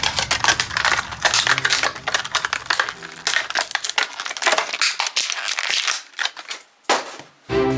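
Clear plastic wrapper crinkling and crackling as it is peeled off a small tub of modelling dough, a dense irregular run of crackles that thins out about six and a half seconds in.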